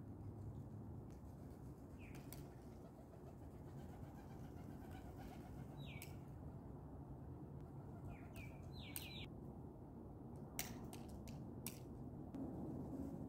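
Rock pigeons' wings flapping as birds fly in and land, with a few sharp flaps clustered about two thirds of the way in. Several short high chirps from a bird come and go over a faint low steady background noise.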